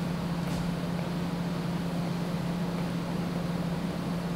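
Steady low hum over a faint even hiss, with a faint click about half a second in.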